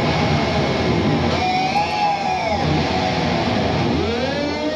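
Live heavy metal band playing loud, with a distorted lead electric guitar bending its notes up and down over the rhythm guitar, bass and drums.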